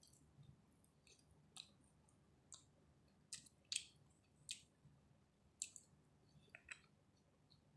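Close-up mouth sounds of chewing chicken biryani: irregular short, wet clicks and smacks, about ten of them, a few seconds apart at first and then closer together.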